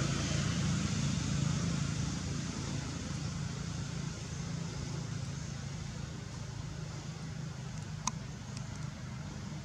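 Steady low rumble of a motor vehicle running, with a few short sharp clicks about eight seconds in.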